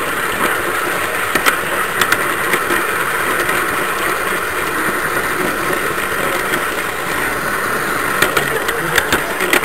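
Garden-scale model train running along its track, heard from on board as a steady running noise of drive and wheels on the rails. Occasional clicks come as the wheels pass rail joints, and a quicker run of clicks near the end as it runs over points.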